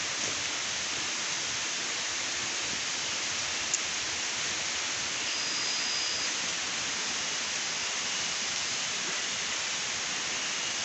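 Steady, even hiss of forest ambience, strongest in the high range. There is a single sharp click near four seconds in and a short, thin high tone a little later.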